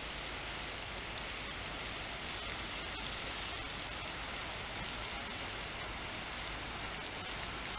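Water fountain jets spraying and splashing into a pool, a steady hiss with no breaks.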